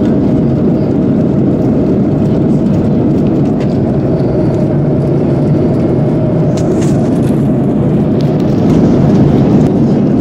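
Steady cabin drone of an Airbus A330-300 in cruise: engine and airflow noise heard from a passenger seat, even and unbroken, with a few faint clicks.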